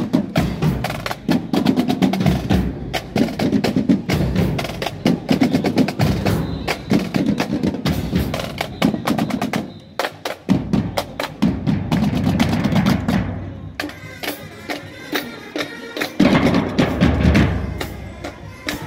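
Marching band drumline — snare drums, bass drums and cymbals — playing a cadence while marching past, a dense run of sharp stick strokes with the bass drums underneath. The drumming dips briefly about ten seconds in, then comes back loud.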